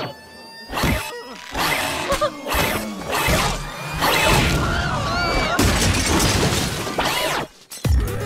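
Crashing and shattering sound effects mixed with music: a few sudden crashes in the first three seconds, then a longer loud stretch of smashing and breaking, as of a wall being burst through.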